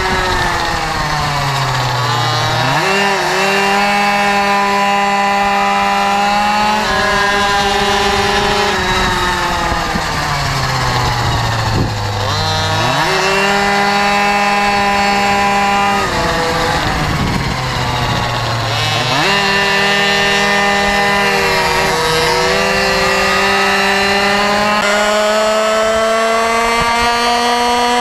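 Motorcycle engine at high revs heard onboard at speed, with wind rush: three times the revs fall away and then jump back up, as when braking and downshifting into a corner, and between these they hold or climb slowly.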